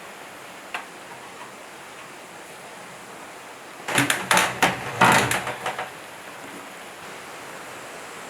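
A single light click, then a burst of loud, irregular clattering knocks lasting about two seconds near the middle, over a steady background hiss.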